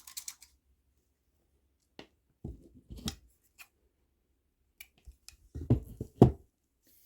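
Scissors snipping through the string of a beaded kandi cuff, with a few scattered clicks and handling knocks. The loudest snips come near the end.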